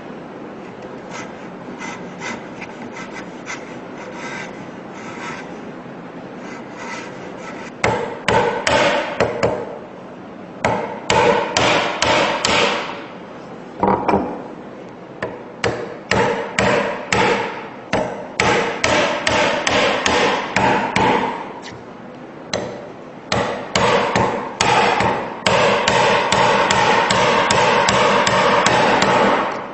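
A wood chisel in pine: soft scraping and paring for the first several seconds, then a mallet striking the chisel in irregular runs of loud, ringing blows from about eight seconds in, with a dense loud stretch near the end, as the joints on the stool legs are chopped out.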